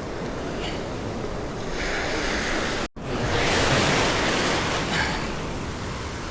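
Surf washing onto the beach, with wind on the microphone; the wash swells louder just after a cut about three seconds in.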